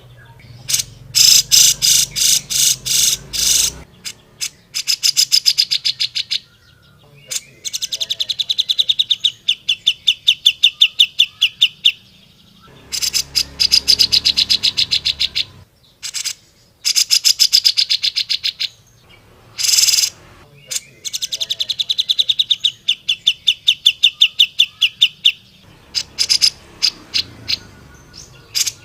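Grey-cheeked bulbul (cucak jenggot) singing in rapid strings of sharp, repeated notes, about ten a second, each string lasting a few seconds with short pauses between: the energetic 'gacor' song used as a tutor recording for training songbirds.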